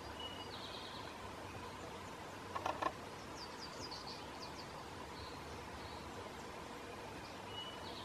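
Three quick knocks, about two and a half seconds in, from a pileated woodpecker's bill striking the rotting wood of a stump as it digs for grubs. Faint small-songbird trills sound in the background over a steady hiss.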